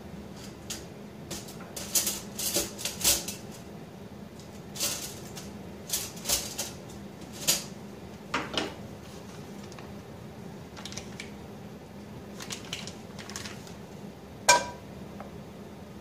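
Kitchen range hood fan running with a steady hum, over scattered light clicks and clatters of kitchenware. The sharpest is a single ringing metallic clink near the end.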